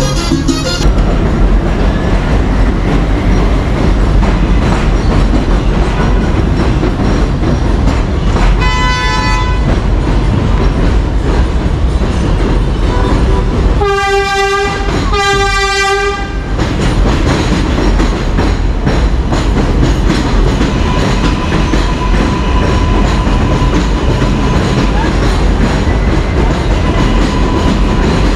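Elevated subway train running on the steel structure overhead: a loud, steady rumble and rattle, with two short horn blasts about halfway through.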